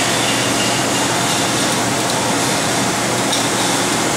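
Steady factory machinery noise, a dense even din with a faint low hum under it.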